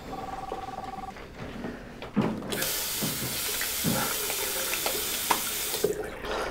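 Water tap running hard into a washbasin, with splashing as hands scoop water to the face. The tap is shut off abruptly near the end. A short, steady electronic tone sounds at the very start.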